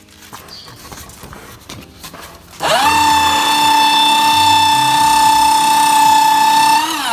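Folded sheets of paper rustle quietly in the hands, then about two and a half seconds in the Secure Maxi 10SC paper shredder's motor starts on its own in auto mode. It runs with a loud, steady high whine as it shreds three sheets at once. Near the end its pitch falls as the motor winds down.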